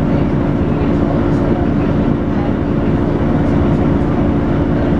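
Volvo B9TL double-decker bus under way, its 9.4-litre six-cylinder diesel running with a steady low drone and the vacuum-cleaner-like 'hoover' whine held on one pitch.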